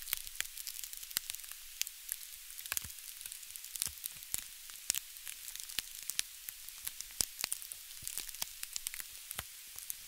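Campfire wood crackling: many irregular sharp pops and snaps over a steady high hiss.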